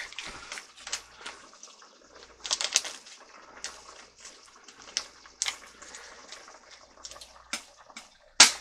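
Pot of chicken curry boiling on the stove, the liquid bubbling with irregular pops and crackles, and a sharper pop near the end.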